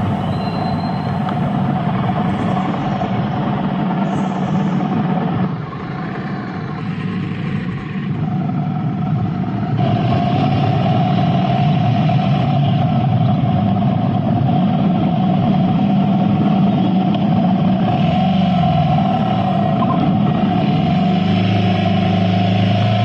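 Motorcycle riding along, its engine droning steadily under wind and road noise. The sound eases for a few seconds about five seconds in, then picks up again.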